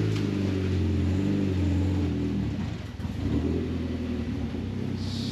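Mitsubishi Lancer Evolution X's 4B11 turbocharged 2.0-litre four-cylinder engine running at low revs with a steady note. It dips briefly about three seconds in, then settles again at a slightly different pitch.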